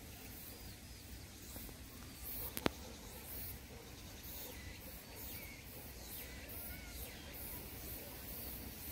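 Outdoor ambience: a steady low rumble with faint bird chirps, and one sharp click about two and a half seconds in.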